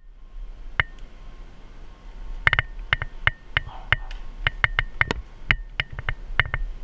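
Climbing gear on a palm trunk: irregular sharp clicks and metallic clinks, some ringing briefly, as an arborist shifts his rope lanyard around the trunk. They come unevenly, a few at a time, and are thickest from about two and a half seconds in.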